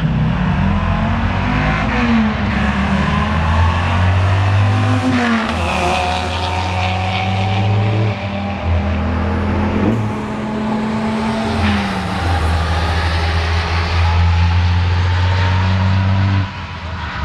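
A Dodge Ram SRT-10 pickup with its 8.3-litre V10 and a semi truck drag racing from the launch, both engines at full throttle. The engine note climbs and drops back at each upshift, several times over the run. It stays loud and steady and eases off only near the end.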